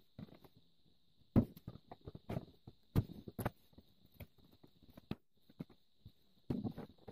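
Irregular clicks, taps and knocks of a screwdriver working the brass bolts on an old hand saw's wooden handle, with the saw and tools shifting on the board; the two loudest knocks come about a second and a half in and near the middle.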